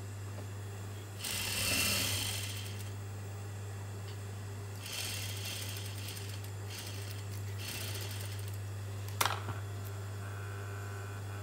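Juki industrial sewing machine's motor humming steadily, with short bursts of stitching as fabric is fed under the needle, and a sharp click about nine seconds in.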